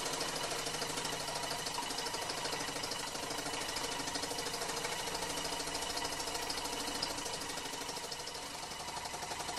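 T. E. Haynes-design school-built model steam engine running steadily with a rapid, even mechanical beat. It runs a little unbalanced and vibrates on its base.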